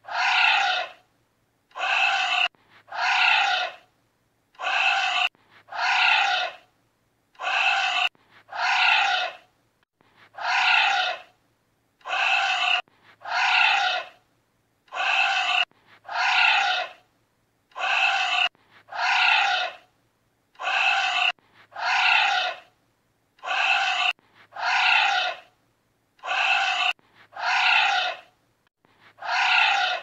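Giant anteater calls: pairs of short pitched calls repeating at an even rhythm, a pair about every three seconds, each call dipping slightly in pitch.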